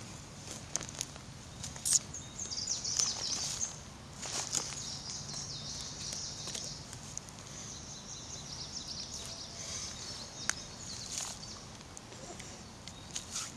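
Forest ambience: birds chirping high, with scattered small clicks and rustles.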